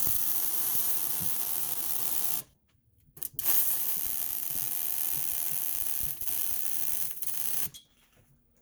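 Arc welding on a steel exhaust pipe joint: the steady crackling hiss of the weld runs for about two and a half seconds, breaks off briefly, then runs about four seconds more before stopping.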